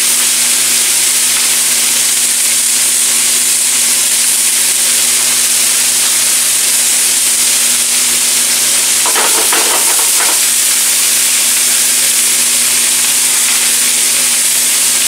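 Mixed mushrooms and vegetables sizzling steadily in a frying pan, with a little water added to the pan to steam them.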